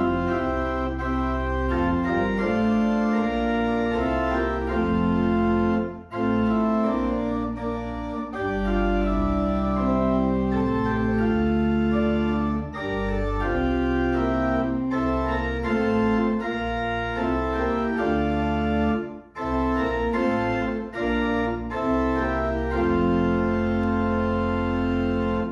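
Organ playing slow, sustained chords in phrases with brief breaks between them, then stopping abruptly at the end.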